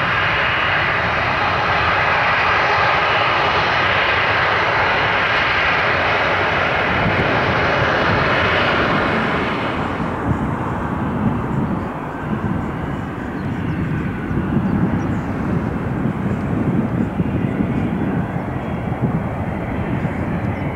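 Twin Pratt & Whitney Canada PW545C turbofans of a Cessna Citation XLS+ business jet at take-off power during its take-off roll: a loud, steady jet roar with a whining edge. About halfway through, the sound drops abruptly to a duller, uneven rumble without the high whine.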